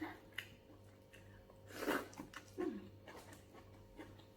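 Close-up eating sounds of a roasted tilapia head being chewed and sucked: scattered wet lip smacks and small clicks, with a louder sucking slurp about two seconds in.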